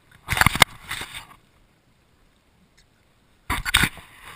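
Knocks and scrapes against a plastic kayak hull, in two short clusters with sharp clicks: one near the start and one near the end.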